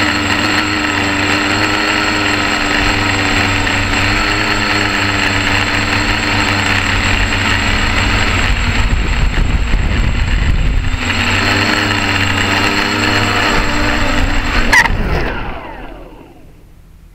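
Quadcopter's four electric motors and propellers whining steadily in flight, heard from a camera on the craft, with a stretch of low rumble around the middle. About fifteen seconds in there is a sharp click, then the motors wind down with falling pitch and stop as the quad comes to rest in the grass.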